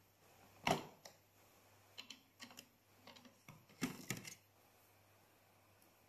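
Hard plastic clicks and knocks as the dust container is unlatched and lifted out of a Bosch BGS 62530 bagless cyclone vacuum cleaner: one sharp click under a second in, a scatter of lighter clicks, and a cluster of knocks around four seconds in.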